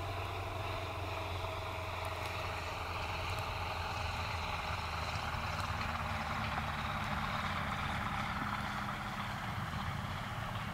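EuroFox K2 light aircraft's engine throttled back near idle as it lands and rolls out on a grass strip: a steady low hum, with a rushing noise that swells past the middle.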